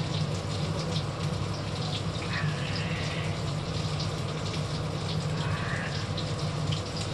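Steady rushing noise with a low hum: a kitchen range hood fan running, with chicken frying in oil in the pan on the stove.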